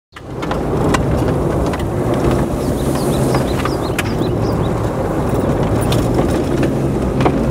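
A car being driven, heard from inside the cabin: a steady rumble of engine and road noise with a low hum, and a few light clicks.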